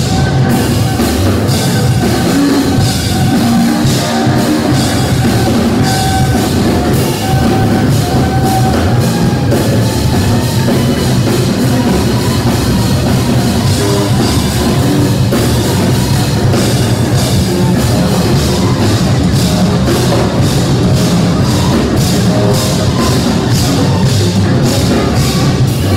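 Live jazz trio playing loud and dense: tenor saxophone over electric bass guitar and a busy drum kit with many cymbal strokes. The saxophone's held melodic notes stand out most in the first half, and the drums fill the rest.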